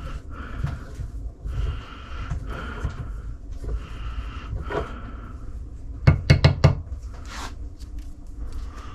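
Hand tap cutting threads in aluminum, grating in three strokes of about a second each as the tap wrench is turned. About six seconds in come four or five sharp metal knocks in quick succession.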